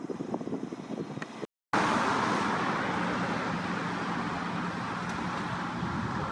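Road traffic: a motor vehicle passing close, with tyre and engine noise that rushes in loudly after a brief dropout about a second and a half in, then eases off slowly.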